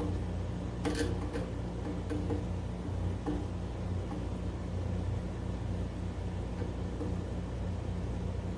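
A few light clicks and taps of a screwdriver and hands working panel-mount switches into an enclosure door: two about a second in, another around three seconds in. Under them runs a steady low hum.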